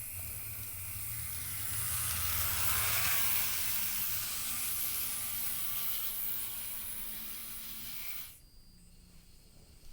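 HO scale Mikado model steam locomotive running under DC power: its small electric motor and drive gear run along the track with a steady whir and hiss that swells a few seconds in. About eight seconds in the sound cuts off abruptly as the locomotive stalls, a sign it is running poorly.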